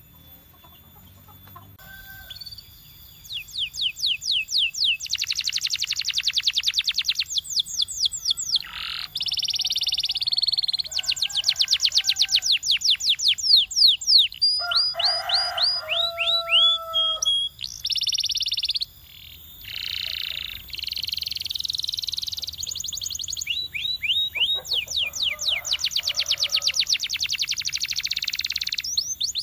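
Domestic canary singing. After a quiet first couple of seconds it sings a long song of fast trills of rapidly repeated notes, quick falling sweeps and held high rolling phrases, changing from one tour to the next every second or two.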